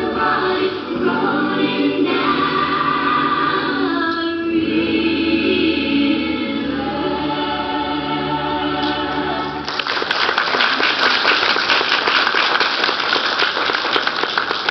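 Music with group singing plays and stops about ten seconds in. An audience then applauds.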